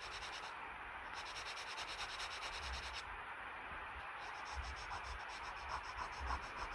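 A drawing tool scratching and rubbing steadily on paper, with a few soft low thumps in the second half.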